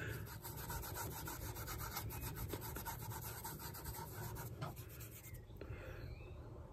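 Wool dauber being rubbed back and forth over leather, applying leather dye in quick, faint scrubbing strokes that stop about five seconds in.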